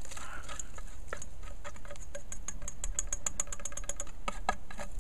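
A metal spoon scraping and tapping cooked sausage out of a small steel pan into a stainless steel bowl. It goes as a run of quick clicks that comes fastest in the middle, with a faint metallic ring.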